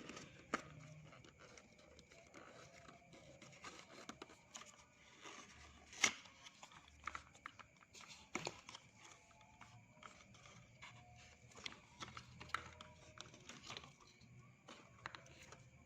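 Small cardboard cough-syrup carton being opened and the bottle taken out: faint scattered clicks, rustles and scrapes of handling, with a sharper tap about six seconds in and another about two seconds later.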